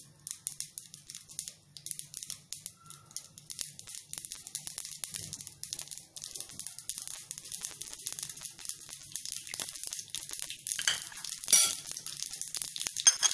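Mustard seeds popping and crackling in hot oil: many quick pops that grow denser and louder toward the end, with a few louder pops near the end, as the seeds splutter for a tempering (tadka).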